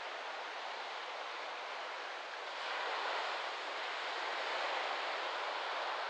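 Small waves breaking and washing up a sandy beach, a steady rush that swells about two and a half seconds in as a larger wash comes in, with wind in palm fronds beneath it.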